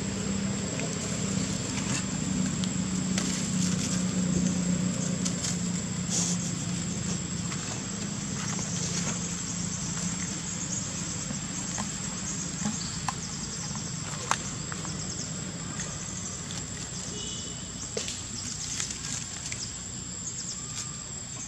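Outdoor ambience: a steady low hum that fades out about ten seconds in, a constant thin high-pitched tone, and scattered light clicks and rustles of dry leaves as macaques move about on the leaf litter.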